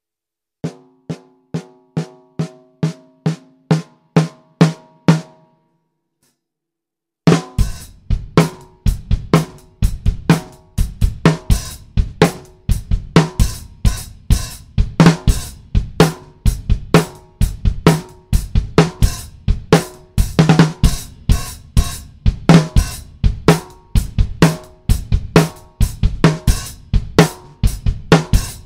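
Tama 50th Anniversary 14 x 6½ rosewood snare drum with Remo Ambassador heads, in its factory tuning. It is struck alone about twice a second, each stroke louder than the last and ringing with a low pitch. After a pause of about two seconds it is played in a groove on the full drum kit with bass drum, hi-hat and cymbals, sounding fat and deep.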